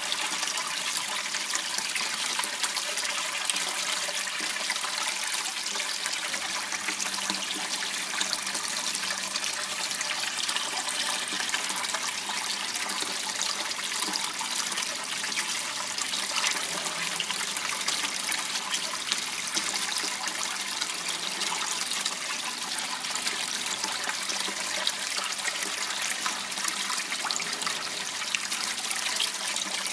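Steady rushing and trickling of water flowing in a narrow waterway, high and hissy with little bass, unchanging throughout.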